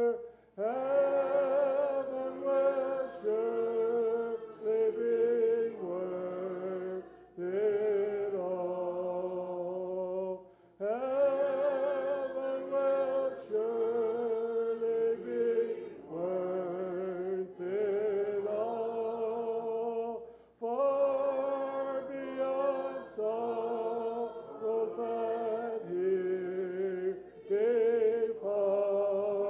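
Congregation singing a hymn a cappella, voices without instruments, in long held phrases with brief pauses between lines.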